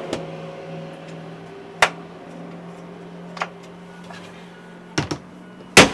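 A few sharp clicks and knocks from cabinet doors and drawers being handled in a truck camper, spaced out, the loudest near the end, over a steady low hum.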